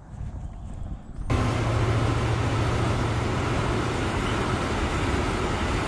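Steady motor vehicle noise, a low engine hum under road noise, starting suddenly about a second in.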